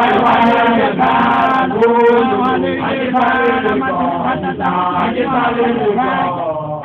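Male voices chanting together in long, drawn-out held notes, a traditional initiation chant of Sotho makolwane (young male initiates).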